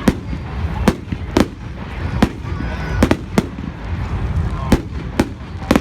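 Fireworks display: about ten sharp bangs of shells bursting at irregular intervals, some in quick pairs, over a continuous low rumble.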